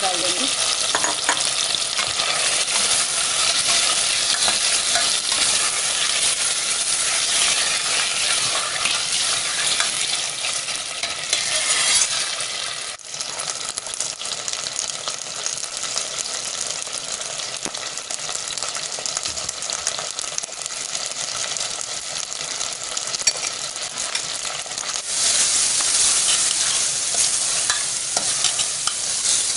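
Mutton pieces sizzling in hot oil with ginger-garlic paste in a steel pressure cooker, with a ladle stirring the meat. The sizzle breaks off briefly about 13 seconds in and is louder again near the end.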